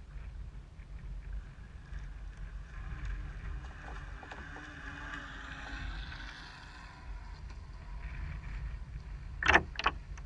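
Onboard sound of a small RC boat running across choppy water: wind buffeting the microphone over a rushing of water along the hull. Two sharp knocks come close together near the end.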